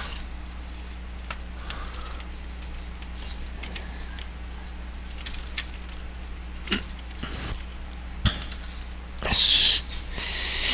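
Handling noises inside an opened MSX computer's plastic case during reassembly: scattered sharp clicks and taps from parts and cables being fitted by gloved hands, with a louder rustle near the end, over a steady low hum.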